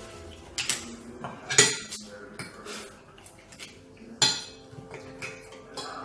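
Forks and cutlery clinking and scraping against plates and a pot during a meal: a few sharp clinks, the loudest about a second and a half in and again about four seconds in.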